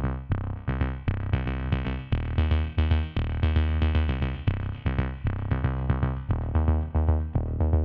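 Background electronic music with a steady beat, a synthesizer and drum machine over a heavy bass line.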